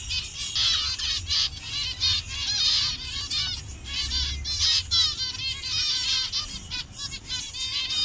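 A colony of zebra finches calling together: many short, high chirps overlapping in a dense, continuous chatter.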